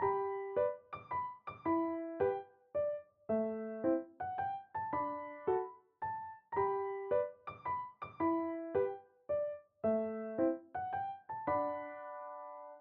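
Background piano music: a gentle melody of struck notes that fade away, ending on a held chord that cuts off near the end.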